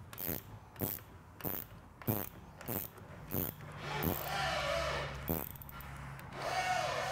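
Socket ratchet wrench clicking in even strokes, about one and a half a second, as a nut is snugged down on the fork's shock-mount bolt. After about four seconds the clicks give way to two longer rasping, squeaky stretches.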